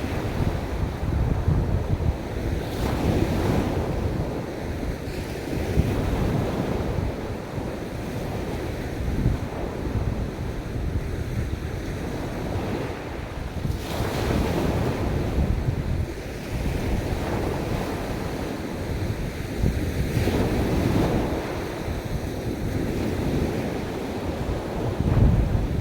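Ocean waves breaking and washing on a beach, surging and easing every few seconds, with wind buffeting the microphone in a low rumble.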